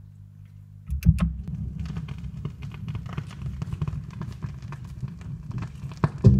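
Record-player stylus in the lead-in groove of a 45 rpm vinyl single: two sharp clicks about a second in, then steady surface crackle over a low hum. The music starts right at the end.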